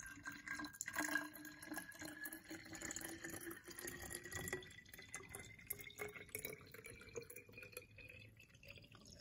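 Tap water poured in a thin stream into the bottle of a Bell & Howell electrolyzed water generator, splashing faintly, its pitch rising steadily as the bottle fills toward the 300 ml line.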